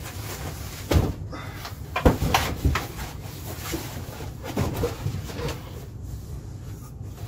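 Cardboard box and foam packing being handled, with irregular knocks and scrapes as the packaging is pulled around inside the box. The sharpest knocks come about one and two seconds in, with more rustling and knocking near five seconds.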